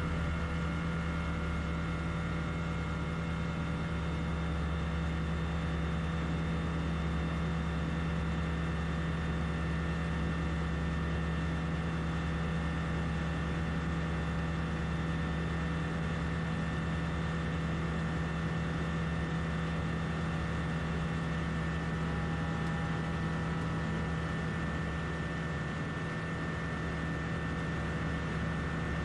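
DynAero MCR01 ultralight's engine and propeller running steadily at takeoff power through the takeoff roll, liftoff and climb, heard from inside the cockpit as a steady drone with a low hum.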